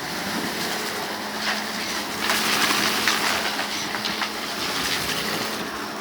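Vacuum cleaner running with a steady motor hum while picking up debris, with many small clicks and crackles of grit rattling through it. It is loudest a little over two seconds in.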